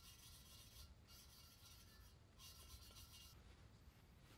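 Faint gritty rubbing in three bursts of about a second each: a valve being lapped against its seat in a Porsche 912 cylinder head, the lapping stick spun back and forth between the palms.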